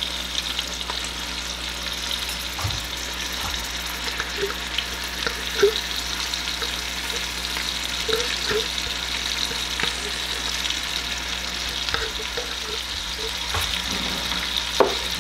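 Melted butter and olive oil sizzling steadily in a pot of boiled potatoes as chopped garlic and onion are added, with small pops and clicks now and then.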